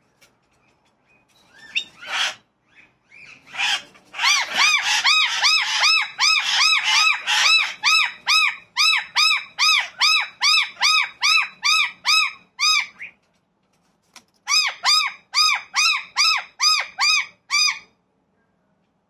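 A bird calling in a long run of evenly spaced, rising-then-falling ringing notes, about three a second. The run breaks off about two-thirds of the way through and starts again for a shorter run. A couple of single calls come just before it.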